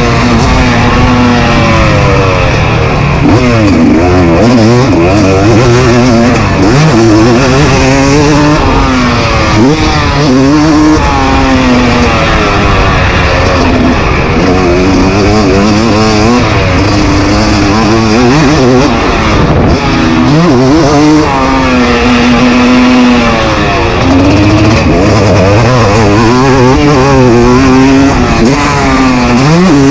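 KTM SX 250 two-stroke motocross engine heard close up from the bike itself, revving hard and dropping back over and over as the rider accelerates, shifts and rolls off around the track. The pitch climbs and falls every few seconds.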